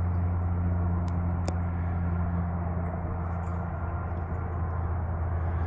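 A steady low machine hum, with two faint clicks about a second in.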